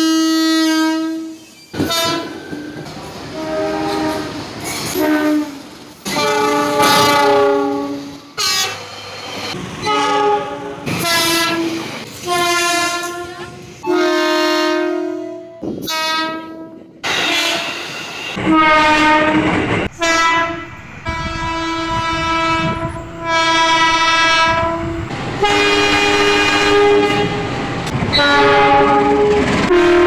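Train horns from a series of electric commuter trains, one clip after another: many blasts, some long and steady, some short toots, some sounding two notes together. Wheels clattering on the rails run under the horns in the later part.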